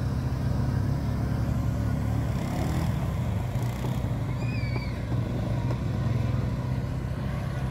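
Off-road vehicle engine idling with a steady low drone. About four and a half seconds in there is a brief wavering high chirp.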